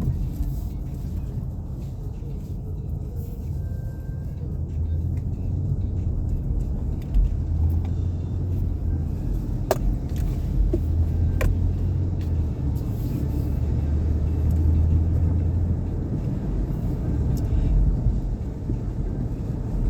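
Nissan Pathfinder being driven: a steady low rumble of engine and road noise, with two brief clicks about halfway through.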